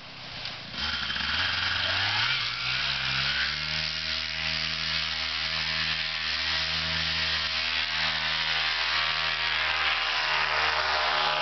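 ParaToys HE 120 paramotor engine and propeller throttling up from about a second in, pitch rising over the next two seconds, then running steady at full power for the takeoff run and climb-out.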